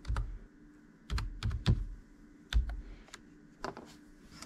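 Computer keyboard being typed on slowly: several separate, unhurried key clicks at irregular intervals, some with a dull knock underneath.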